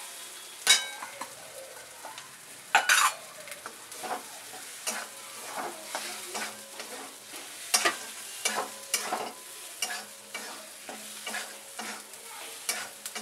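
Metal spatula stirring and scraping a thick masala around a metal kadhai while it sizzles in the oil, in irregular strokes. Two sharp clanks in the first few seconds are the loudest sounds.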